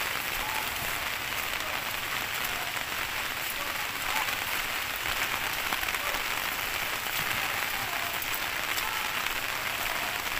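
Heavy rain falling steadily, an even dense hiss of drops on grass and a wet path.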